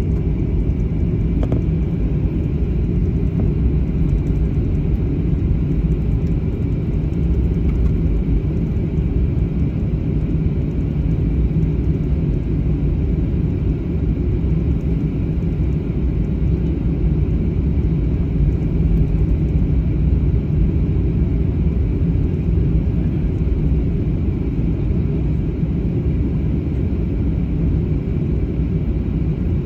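Jet airliner cabin noise: a steady low rumble of the engines at taxi power and the airframe rolling on the ground, heard from a window seat.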